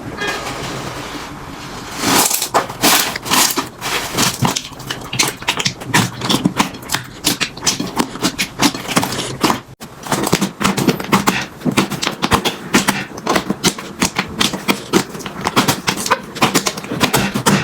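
Slime being squeezed and worked by hand, giving a dense run of fast crackling clicks and pops, with a short break about ten seconds in. It is softer and smoother for the first two seconds.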